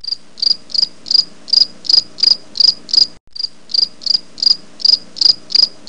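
Cricket chirping: short, high-pitched chirps repeated evenly at about three a second, with a brief break about halfway through.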